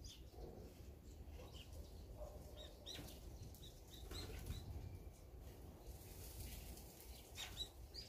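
Small songbirds chirping faintly in short, high, scattered chirps, two close together near the end, with a brief flutter of wings as a bird flies down to land. A low rumble lies underneath.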